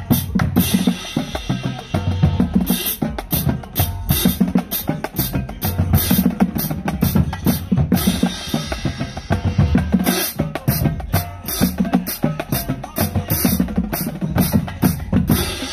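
Marching band drumline playing a street cadence: bass drums, snare drums and crash cymbals beating out a steady, driving rhythm.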